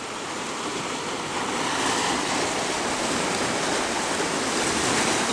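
Ocean surf washing against the rocks, a steady rushing noise that swells over the first couple of seconds and then holds.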